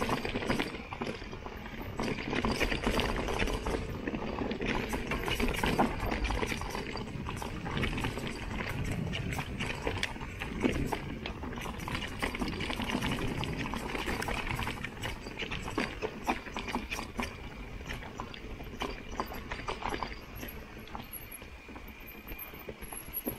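Mountain bike descending a rough trail: tyres rolling over loose ground and the bike rattling with rapid, irregular knocks and clicks, under steady rushing noise.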